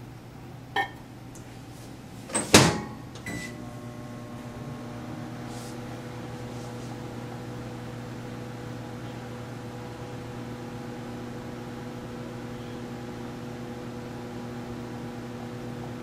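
Microwave oven: a light knock about a second in, the door shut with a loud clack about two and a half seconds in, then the oven starts and runs with a steady low hum.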